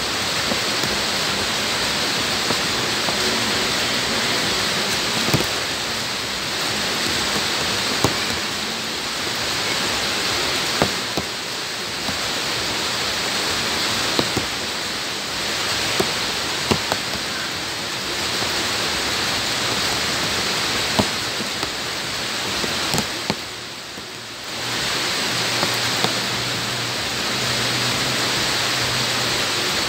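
Rain falling steadily on bare ground and shallow puddles: an even hiss, with the sharp tick of a single large drop landing close by every few seconds. The hiss dips briefly about three-quarters of the way through.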